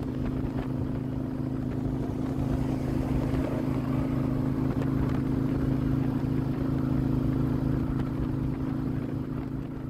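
Harley-Davidson V-twin motorcycle engine running steadily at highway cruising speed, heard from the bike itself as an even drone mixed with wind and road noise.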